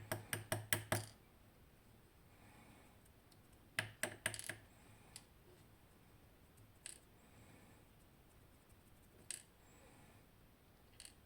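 Small metallic clicks and taps from a Nemef NF2 pin-tumbler lock being taken apart. A quick run of clicks, about six a second, opens the sound, followed by a short cluster about four seconds in and then a few single clicks.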